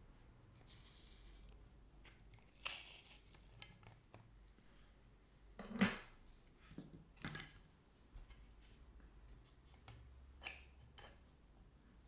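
Trading cards and packaging being handled on a table: a few light clicks and taps, the loudest a small knock about six seconds in, with soft sliding in between.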